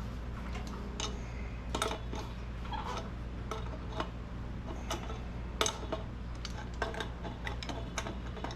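Scattered metal clicks and clinks of hand tools working a fitting loose on a sandblaster tank, irregular, with a sharper clink about 2 seconds in and the loudest about 5.5 seconds in. A steady low hum runs underneath.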